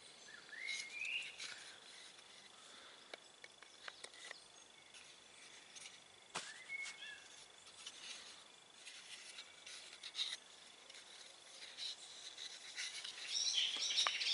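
Faint woodland ambience: a steady high insect-like hum, two short rising bird calls and a burst of bird chirping near the end. Scattered small clicks come from handling a knife and a carved wooden sheath.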